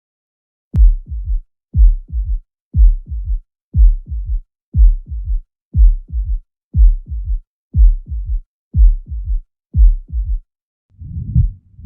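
Recorded heart sounds, as heard through a stethoscope, beating steadily at about one beat a second; each beat is a loud low thud followed closely by two softer ones. Near the end a different heart sound takes over, each beat a longer, noisier sound.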